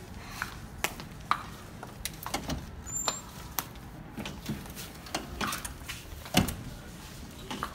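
Footsteps on a hard floor and the handling of a door being opened and passed through: a string of irregular sharp clicks and knocks, the loudest knock about six seconds in.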